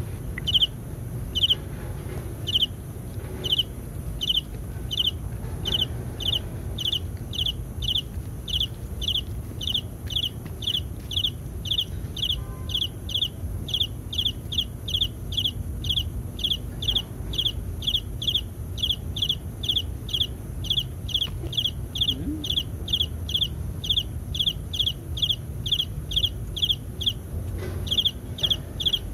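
A repeated high-pitched chirp at an even pace of about two to three a second, with a short pause near the end, over a low steady rumble.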